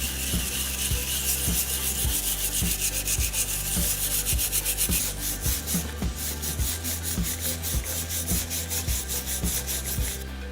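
Rapid, regular back-and-forth rubbing strokes of hand sanding on the metal of a copper sledgehammer, over soft background music.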